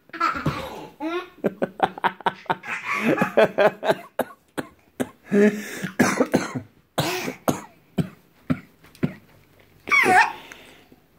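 A man laughing and letting out short, cough-like grunts as a toddler climbs and bounces on his back, mixed with the toddler's giggles, a high squeal near the end, and scattered thumps.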